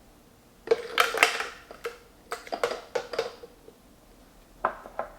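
Ice cubes clattering into a Ninja Master Prep blender container: a quick run of clinks and knocks over a couple of seconds, then one more knock near the end.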